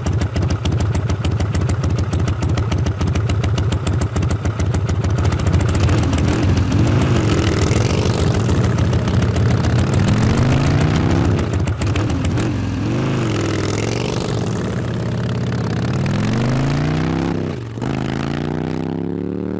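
Motorcycle engine running with a rapid, even beat, then revving up and down several times. Near the end the revs drop sharply and climb again.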